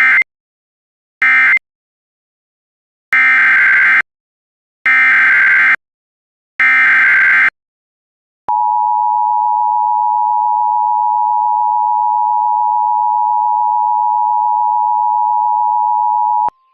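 Emergency Alert System audio. It starts with two short screeching digital data bursts, the tail of an end-of-message code, then three longer SAME header bursts announcing a new alert. Then the steady two-tone EAS attention signal (853 and 960 Hz) is held for about eight seconds and cuts off abruptly.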